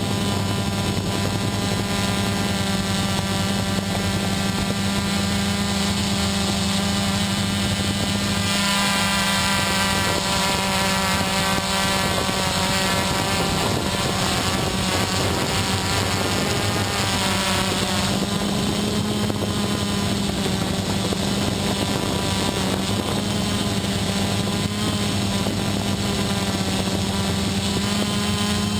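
XP2 quadcopter's electric motors and propellers whining steadily in flight. The pitch of the whine shifts about a third of the way in and shifts back about two-thirds of the way through as the motor speeds change.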